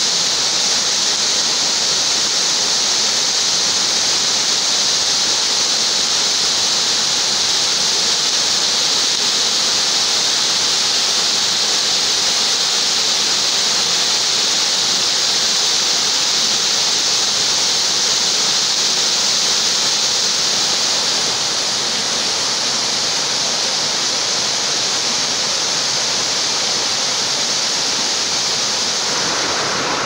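The Dzhur-Dzhur waterfall pouring from its limestone ledge into the pool below: a steady rushing hiss of falling water, dropping a little in level about two-thirds of the way through.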